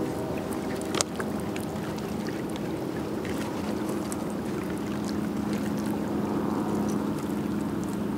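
Boat motor running steadily at idle, a low even hum, with a single sharp click about a second in.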